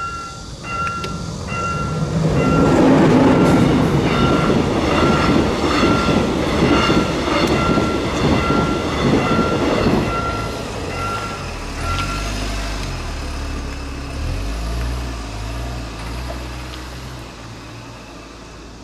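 A level-crossing warning bell dings about twice a second while a Korail Class 8200 electric locomotive and its Mugunghwa passenger train pass. The rumble and wheel clatter are loudest from about two to ten seconds in. The bell stops about twelve seconds in, and a low car-engine hum follows as a car drives over the reopened crossing.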